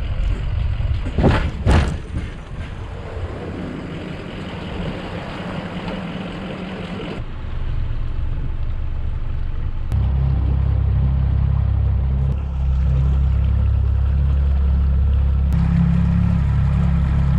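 Yamaha 40 hp outboard motor running as the boat pulls away, with two sharp knocks about a second in. From about ten seconds in the engine note is louder, lower and steady as the boat gets under way.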